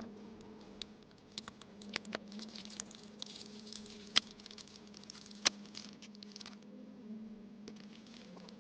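Light crinkly rustling and scattered small clicks and taps as masking tape rolls and their packaging are handled. Two sharper clicks about four and five and a half seconds in are the loudest. A faint steady hum runs underneath.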